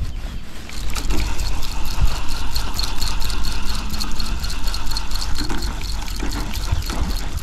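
Fishing reel being wound in steadily, a rhythmic ticking about six times a second over a low rumble.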